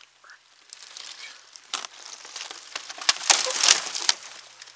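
Crunching, crackling rustle of debris being handled, with several sharp clicks, loudest about three to four seconds in.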